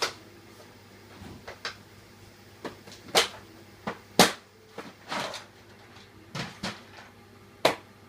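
Irregular knocks, clunks and short scrapes of objects being handled and set down indoors, about a dozen in all, the sharpest a little after four seconds and another near the end. A faint steady hum runs underneath.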